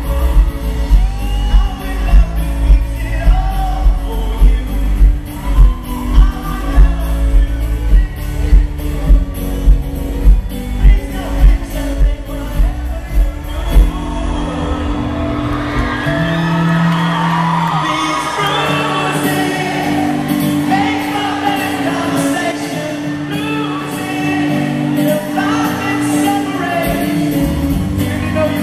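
Live pop-rock band and singing. A heavy kick-drum beat thumps about one and a half times a second, then stops about halfway through. After that, voices carry the song over held chords.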